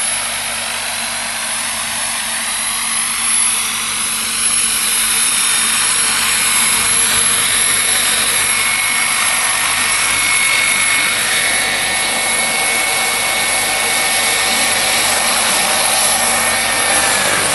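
Bergen Intrepid RC helicopter's small gas turbine giving a steady high-pitched whine over the rotor noise as the helicopter hovers low and settles on the ground, the pitch wavering slightly as it moves. The turbine is left running at idle to cool before the auto shutdown.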